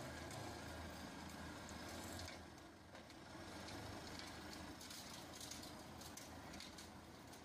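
Tractor engine and side-mounted flail mower running while the mower cuts grass, heard faintly as a steady low hum with light scattered ticks.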